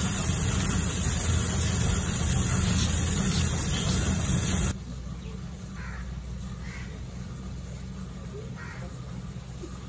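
Electric butter churn's motor running steadily, churning yogurt and water in a clay pot; it cuts off abruptly about halfway through. Then crows caw several times.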